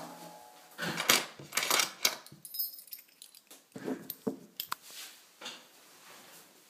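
Irregular rustling and knocking handling noises, in two clusters about a second in and about four seconds in.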